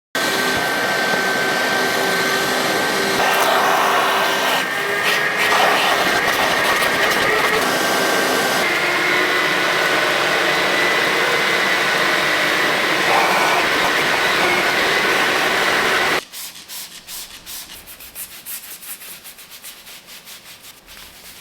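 HYLA vacuum cleaner running with a steady rush and a whine that shifts slightly in pitch as it works over a car floor mat, switching off sharply about sixteen seconds in. After it stops, a brush scrubs the mat in quick strokes, quieter.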